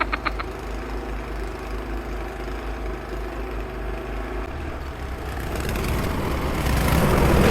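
Cub Cadet 524 two-stage snowblower engine running steadily after its carburetor work and freed-up choke. A fast rhythmic clatter stops about half a second in, and over the last three seconds the sound grows louder, with a rushing noise building over the engine.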